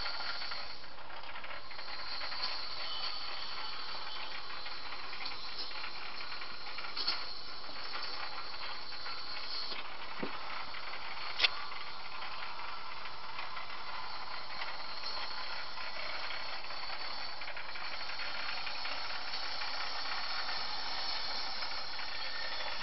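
A steady mechanical whir and hiss with two clicks, a faint one about seven seconds in and a sharp one about eleven seconds in.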